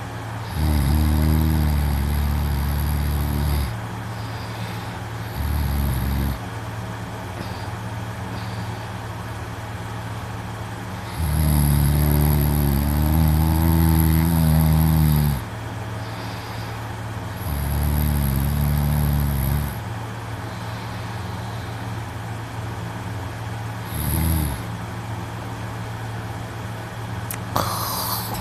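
A young man snoring loudly in his sleep: five low snores of uneven length, the longest about four seconds, over a steady low hum, with a short click near the end.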